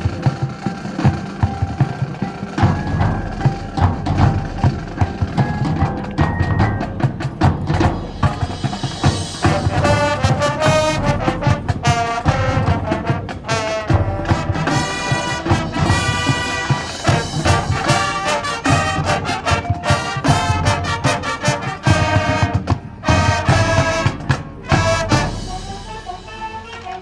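High school marching band playing: brass chords from trumpets and trombones over a steady drumline beat, the brass growing fuller and brighter about a third of the way in.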